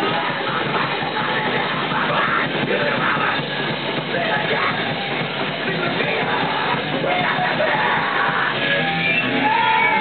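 Live rock band playing loudly, with shouted vocals over drums and electric guitar.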